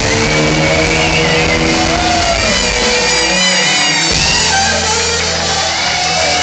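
Rock band playing live, with guitar and bass, loud and heard from within the audience in a concert hall. The deepest bass drops out briefly just past halfway, then comes back.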